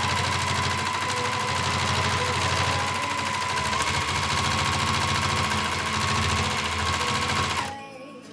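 Domestic sewing machine stitching at speed during free-motion quilting: a fast, even run of needle strokes over a steady motor whine. It stops abruptly near the end.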